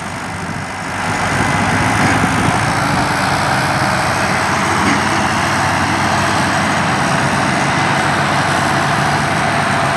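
Diesel engines of a Belarus and a John Deere tractor running hard under heavy load, straining against each other through a fully loaded trolley in a tug-of-war. The engine noise rises about a second in, then holds steady and loud.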